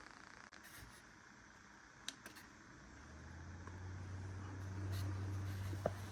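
A device's abnormal noise: a low hum that sets in about three seconds in and grows louder. The title gives it as a noise that starts when the device is turned from sideways to pointing downward. A sharp click comes near the end.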